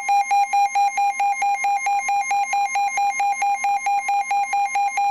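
A weather radio receiver's alert alarm beeping loudly and rapidly, about five beeps a second, over the steady 1050 Hz NOAA Weather Radio warning alarm tone, which signals that a new warning is about to be broadcast. The beeping cuts off near the end, leaving the steady tone.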